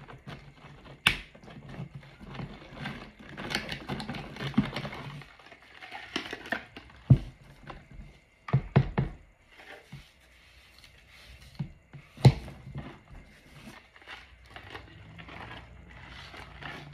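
Silicone spatula stirring sodium hydroxide into frozen almond milk in a plastic measuring jug while the lye solution is mixed: irregular scraping and crunching, with sharp knocks against the jug about a second in, around seven and nine seconds in, and again near twelve seconds.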